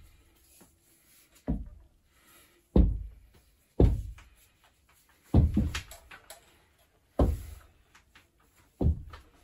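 A series of about seven heavy, dull knocks or thuds, irregularly spaced a second or so apart, each with a short boomy decay.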